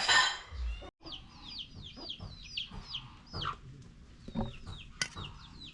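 Chickens calling: after about a second, a string of short, high peeps that fall in pitch, repeating a few times a second, with a few soft knocks underneath.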